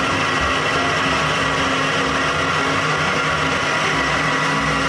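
Countertop blender running steadily, loud, blending a smoothie.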